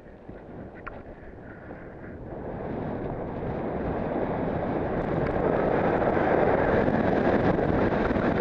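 Wind buffeting the helmet camera's microphone and a snowboard sliding and scraping over packed snow on a groomed run, rising steadily in loudness from about two seconds in as the board picks up speed.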